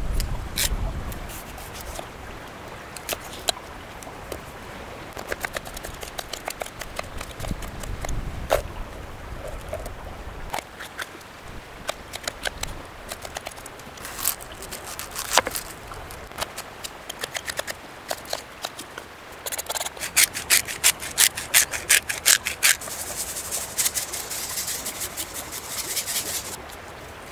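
A knife cutting potato, bell pepper and onion on a flat stone slab: scattered taps and cuts, then a quick run of chopping strikes later on, and a scraping rub near the end.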